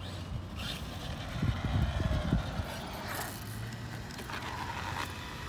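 Traxxas Maxx electric RC monster truck running, its brushless motor whine dipping and rising in pitch, with a few low thumps around two seconds in.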